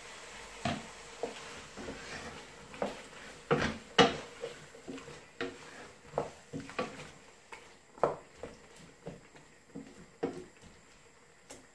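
Wooden spoon stirring a chunky curry in a stainless steel pot, knocking and scraping against the pot in irregular strokes, loudest about four seconds in and fewer near the end.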